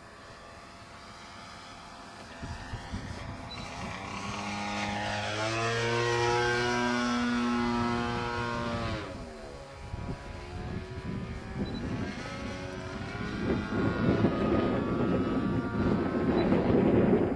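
Zero fighter's propeller engine flying past, its note growing louder and then sliding down in pitch as it goes by, around nine seconds in. Wind rumbles on the microphone in the last few seconds.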